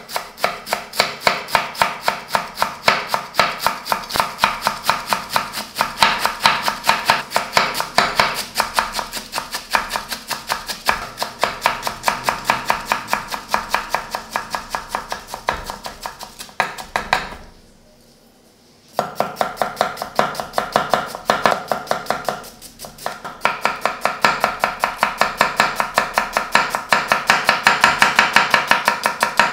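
Chef's knife chopping finely on a wooden cutting board, first a bunch of keerai greens and then an onion, in quick, even strokes. The chopping stops for a second or two a little past the middle, then resumes.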